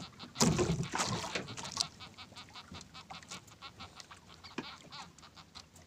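Nylon fishing handline being hauled in hand over hand, a short rasp or squeak with each pull. The pulls are loudest in the first two seconds, then run on at about four or five a second and fade toward the end.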